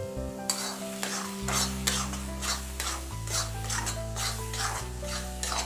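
A steel spatula stirring and scraping a thick frying masala around a metal kadai in quick repeated strokes, working in salt that has just been added. Background music plays underneath.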